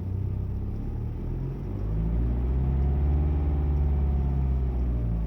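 BMW N47 2.0-litre four-cylinder diesel engine running after its timing chain and chain guides have been replaced. The revs rise a little about two seconds in and drop back near the end.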